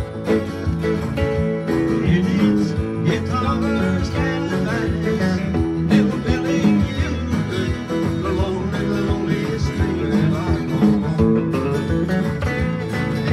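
Acoustic and electric guitars playing a country tune together, an instrumental passage with no singing.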